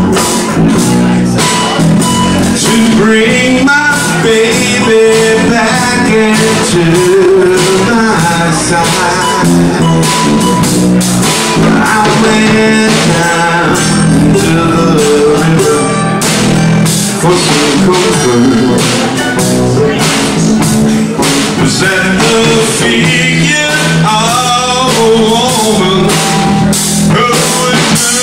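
Live band playing an instrumental passage of a slow, sad blues number: drum kit with timbales, electric bass and ukulele, with a wavering lead line over them.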